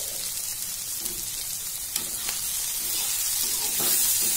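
Chopped vegetables sizzling in ghee in a kadhai while a metal spatula scrapes and stirs them. The sizzle swells louder near the end as they are turned over.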